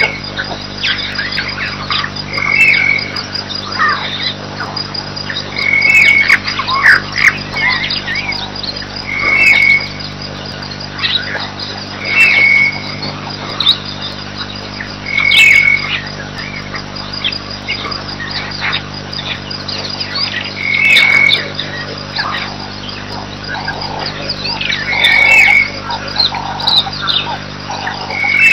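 Wild birds calling over continuous insect chirping, with one short clear whistled note repeated every few seconds and a steady low hum underneath.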